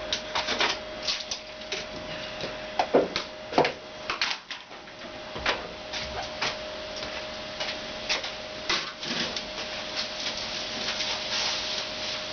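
Irregular sharp clicks and knocks of hand work, the loudest a few knocks about three seconds in, over a faint steady tone.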